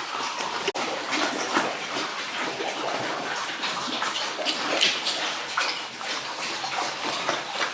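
Water splashing and running steadily as pigs and their pen are washed down.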